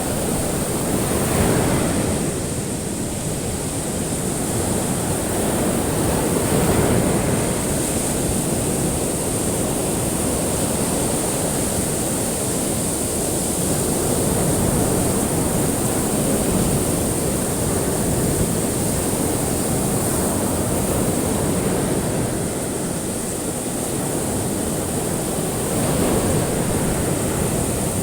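Ocean waves breaking and washing onto a shore, the surge swelling and easing every few seconds, with a steady high hiss running over it.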